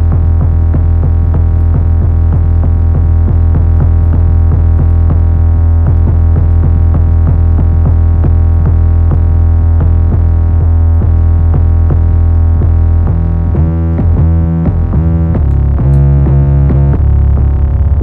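A distorted 808 bass playing back in a trap beat: it holds a long low note with gritty overtones under a busy pattern of drum-machine hits, then switches about 13 seconds in to shorter notes that jump in pitch. It runs through a distortion and compressor chain that shapes its attack.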